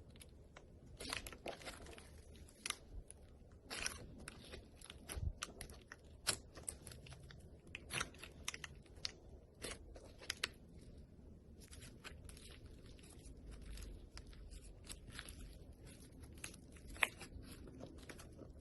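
Slime being squeezed and pressed by hand, giving a dense, irregular series of crunching, crackling clicks.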